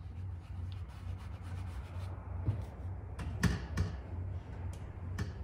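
Paper towel dabbing and rubbing acrylic paint onto a stretched canvas, with a few sharp taps from about halfway through, the loudest two close together, over a steady low hum.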